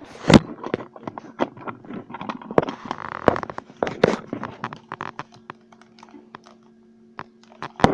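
Irregular plastic clicks and knocks of a part being fitted back into a Macintosh SE setup, over a steady low hum.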